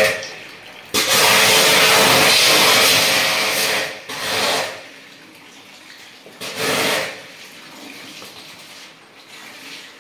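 Jet pump spray gun blasting water onto a split air conditioner's indoor unit in three bursts: a long one of about three seconds starting about a second in, then two short ones.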